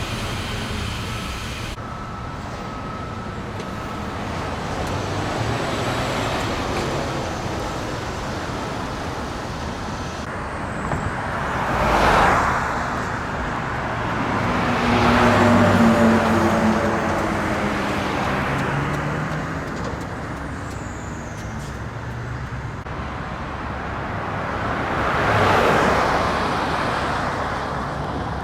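Street traffic: steady road noise with vehicles passing close by, swelling and fading three times, about twelve seconds in, around fifteen seconds and near the end. The second pass carries a low engine drone.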